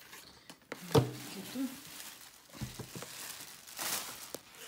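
Plastic protective film on a pressure cooker's lid crinkling and rustling as it is handled, with a sharp knock about a second in and a softer thump later.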